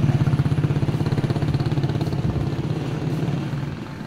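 A small engine running steadily with a low, pulsing drone that fades away near the end.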